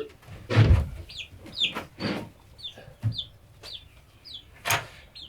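Pet bird calling: a string of short, high chirps, each falling in pitch, about two a second. A few louder brief thumps or rustles come through among them, the loudest near the end.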